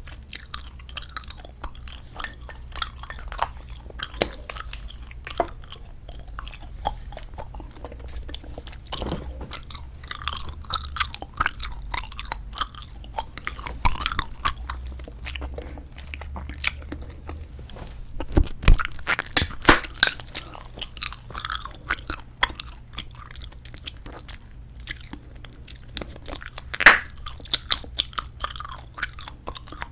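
A mouth chewing bubblegum, with a steady run of wet clicks and smacks that grows busier in the second half and one sharp, louder snap near the end.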